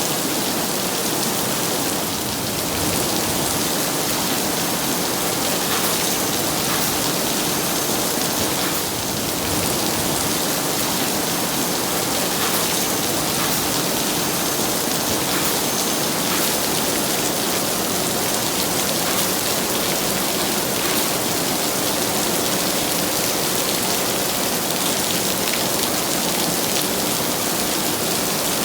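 Heavy rain falling steadily, a dense even hiss of drops with many small patters on surfaces.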